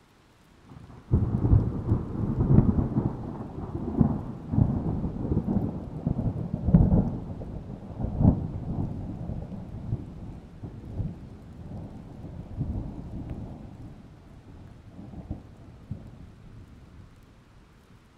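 A thunderclap: a sudden crack about a second in that rolls into a long rumble with several louder peaks, slowly dying away over the next fifteen seconds.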